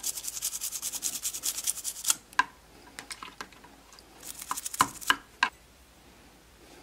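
A small brush scrubbing a toy car's plastic interior piece in rapid back-and-forth strokes, about ten a second. The strokes come in two spells, a longer one at the start and a shorter one past the middle, with a few light plastic clicks between and after them.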